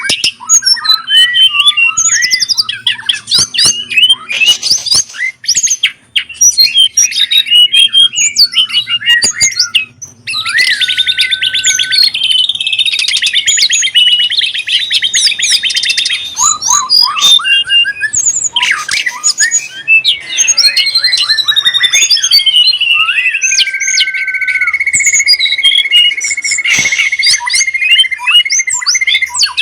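Pet songbirds singing a continuous, rapid mix of chirps, squawks and whistles. About a third of the way in comes a long, fast trill, and in the second half a whistle slides down and settles into a long held note.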